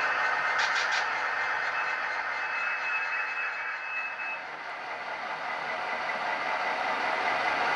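Model railroad train running on the layout track: a steady rolling noise with a thin high whine. It fades about halfway through and builds again near the end as the next model freight approaches.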